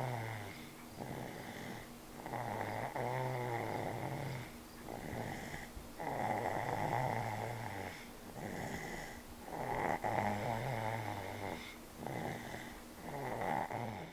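Stuffy, congested snoring: a rough, rattling snore on each breath, repeating every second or two.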